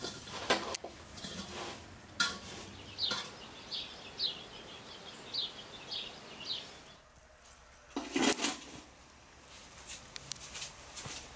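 Metal slotted spoon clinking and scraping against an enamel bowl as diced zucchini is stirred, with a few sharp clinks in the first three seconds. Another metal clatter comes about eight seconds in.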